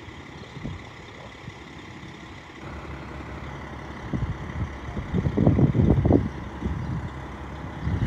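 Diesel engine of a parked charter coach idling with a steady low hum, with louder low swells of rumble about four to six seconds in.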